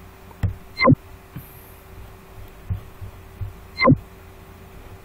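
Two sharp thumps about three seconds apart, each with a quick downward sweep in pitch, between a few softer low knocks over a steady electrical hum.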